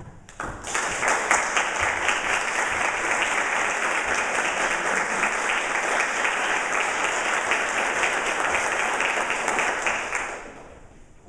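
Audience applauding, many hands clapping at once. The applause starts about half a second in, holds steady, and dies away near the end.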